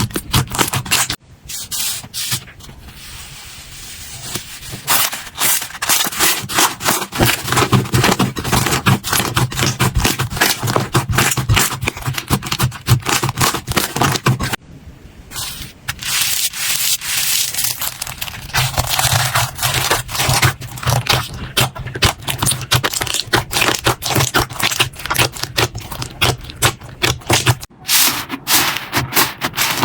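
Slime being squeezed and worked by hand close to the microphone: a dense run of crackling and popping clicks, with two quieter stretches, one near the start and one about halfway through.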